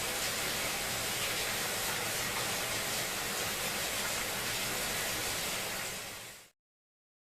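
Steady rain, an even hiss, that fades quickly and stops dead about six and a half seconds in.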